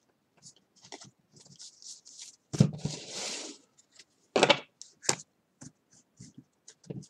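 Trading cards being handled on a tabletop: soft flicks and taps as cards are shuffled through and the stack is set down, with a sharper knock about two and a half seconds in followed by a brief rustling slide.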